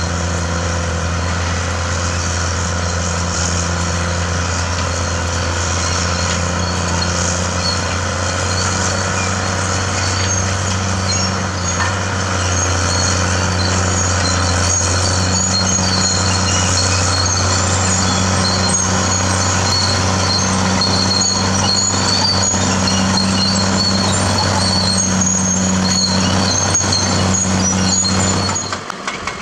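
CAT D6R bulldozer's diesel engine running steadily, with high-pitched squeaks from about ten seconds in, until the sound drops off suddenly near the end.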